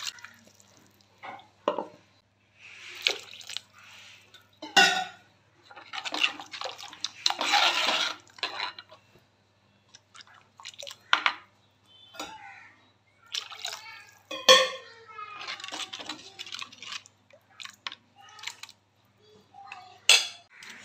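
Water poured into coconut-and-chilli curry paste in a clay pot, and the thinned gravy stirred with a steel ladle: stretches of splashing pouring, wet stirring, and several sharp knocks of the ladle against the pot.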